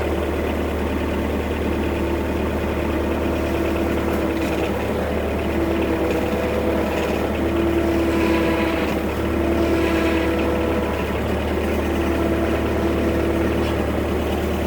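Bobcat skid-steer loader engine running steadily, swelling slightly a couple of times as it works to roll a heavy log on a chain.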